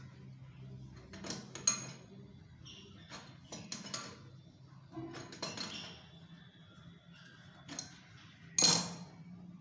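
Metal kitchen tap parts, a brass spindle and chrome fittings, clinking and scraping as they are handled and fitted. The clinks come irregularly, with the sharpest one a little before the end.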